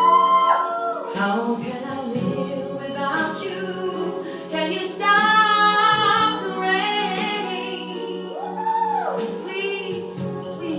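A female soloist singing wordless, melismatic ad-libs over a ballad backing track with choir-like backing vocals: sweeping slides up and down near the start and again near the end, with a long note held with vibrato in the middle.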